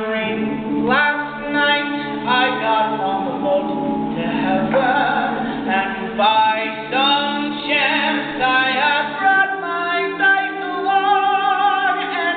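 Male a cappella group singing: a lead voice carries the melody over chords held by the backing singers, with no instruments.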